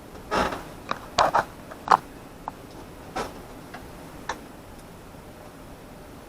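Scattered small clicks and clatters of hand work on small parts and screws, about eight light knocks spread over the first four seconds or so.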